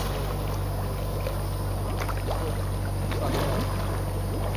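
Steady low hum under an even hiss, with faint voices briefly about three seconds in.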